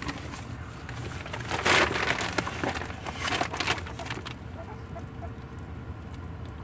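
Rustling and scuffling with a few short knocks, loudest about two seconds in, over a steady low hum of the car cabin.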